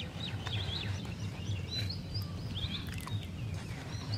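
Small birds chirping, many short calls overlapping, over a steady low rumble.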